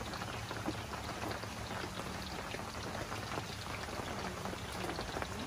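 Hot oil sizzling steadily in a pan over a wood fire, a dense, even crackle.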